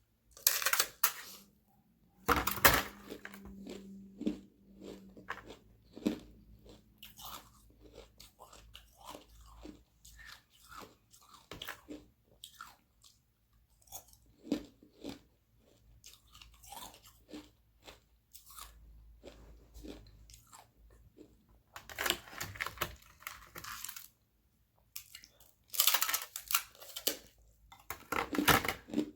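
Close-up biting and chewing of thin sheets of frozen carbonated-water ice: sharp cracks and crunches, with loud bursts of crunching about two seconds in and again near the end, and quieter chewing between.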